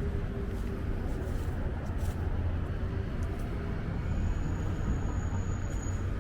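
Steady low rumble of road traffic in a city street ambience, with a faint high steady tone in the second half.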